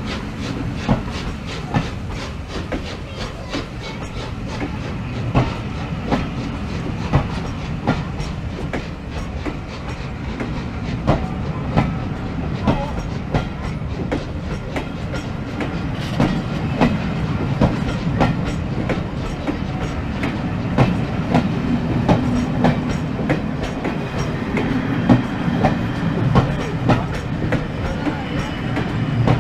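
A train rolling past on the rails: a steady low rumble with the repeated click-clack of wheels going over rail joints.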